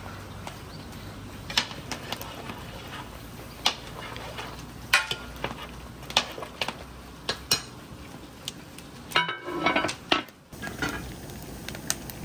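Cooking utensils clinking and knocking against pots and dishes in irregular single strikes, with a quicker, ringing clatter of metal near the end.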